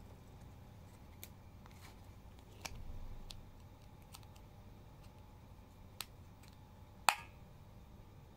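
Small plastic clicks and creaks as a plastic spoon is worked out of its clip on a plastic lid, with a brief rustle in the first half and a sharp snap near the end.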